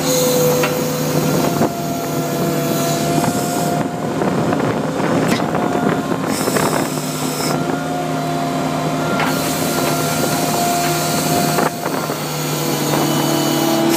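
Skid steer loader running with its grubber attachment working, a steady engine tone whose pitch drifts slightly up and down, with a few sharp knocks.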